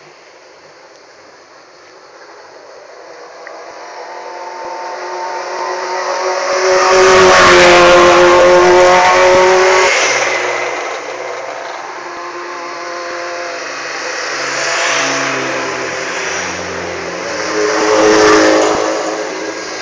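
Minislalom race car engines at high revs, rising and falling through gear changes as the cars drive the course. One car builds to a loud pass about seven to ten seconds in, and the engine sound rises again near the end as another car approaches.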